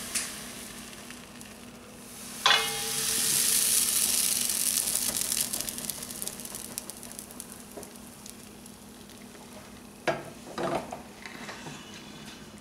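Thin crepe batter sizzling in a hot frying pan. A clink about two and a half seconds in is followed by the sizzle swelling to its loudest, then slowly dying down, with a couple of knocks near the end.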